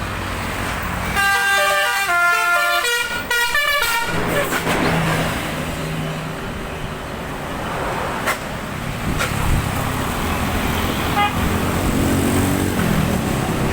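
Telolet bus horn, a Basuri multi-trumpet air horn run by a DAV melody module, plays a quick tune of stepping notes for about three seconds, starting about a second in. Vehicle and traffic noise follow.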